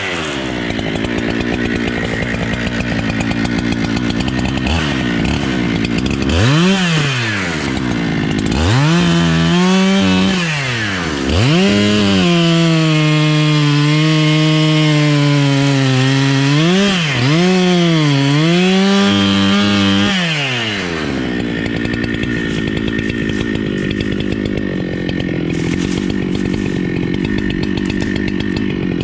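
Two-stroke chainsaw running at low revs, then revved up in several quick sweeps about six seconds in. It is held at high revs for about eight seconds with brief dips in pitch, then drops back to low revs near the end.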